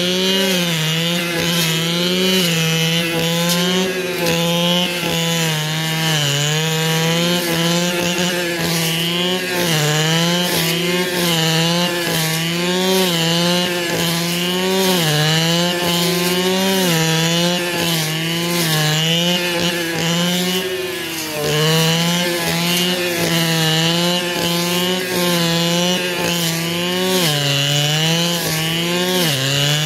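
Brush cutter engine running at high revs while mowing thick brachiaria grass, its pitch wavering up and down as the cutting head bites into the grass. The revs sag briefly twice, about two-thirds of the way through and near the end.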